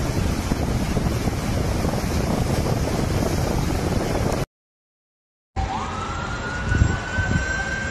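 Floodwater torrent rushing, with wind buffeting the microphone. It cuts off abruptly about four and a half seconds in, and after a second of silence a siren wails in a slow rising tone over a low rumble, with a brief low thump near the end.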